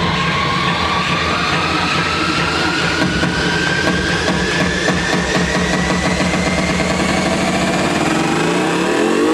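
Psytrance build-up: one synth tone rises slowly in pitch over a buzzing, rapidly pulsing bass, and the bass drops out shortly before the end.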